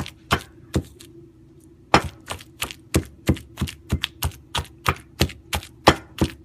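Stone pestle pounding wet chili paste in a stone mortar: a few strikes, a pause of about a second, then steady pounding at about three strikes a second.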